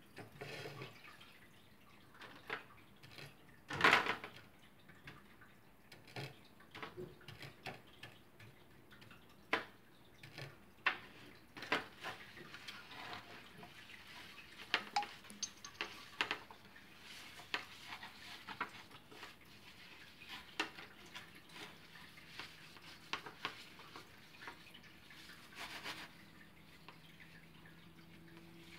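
Paintbrush tapping, dabbing and scraping in a disposable aluminium foil tray of wet paint: scattered light clicks and crinkles of the foil, with one stronger knock about four seconds in.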